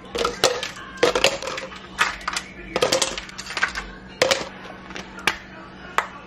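Ice cubes dropped one at a time into a plastic tumbler, about a dozen sharp clinks at uneven intervals.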